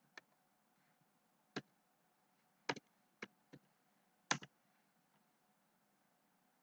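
Computer mouse clicking: about eight short, sharp clicks spread unevenly over a few seconds, including two quick double clicks.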